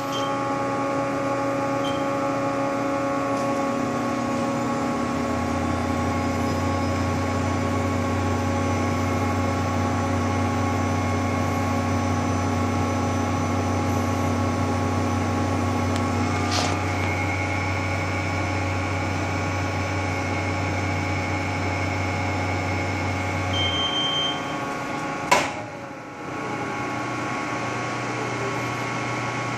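TurboChef Tornado high-speed toasting oven running a cook cycle: a steady machine hum from its blower and microwave, with a deeper hum joining about five seconds in. A click comes near the middle, a short beep as the cycle ends, then a sharp clunk as the oven door is opened.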